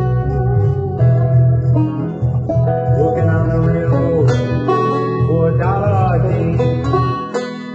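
Banjo picking the instrumental intro of a folk-country tune, over a steady low bass line, with some sliding, bending notes about two-thirds of the way through.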